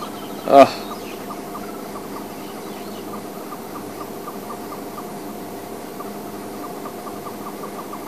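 Birds calling in the bush: a steady rapid chirping, about five notes a second, with one short loud cry about half a second in.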